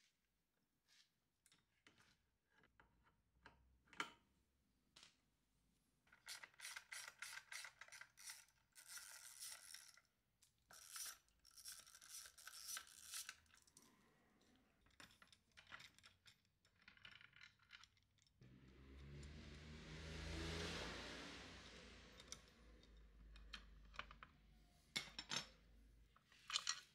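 Faint socket wrench ratcheting in quick runs of clicks as bolts on the scooter's rear swingarm are undone, with scattered single metal clicks. About two-thirds of the way through, a soft rush of noise swells and fades.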